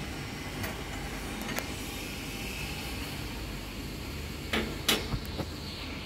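A few sharp metal clicks and knocks, most of them together about four and a half to five seconds in, as a hydraulic pressure-gauge fitting is taken off an excavator's pump. They sit over a steady low machinery hum.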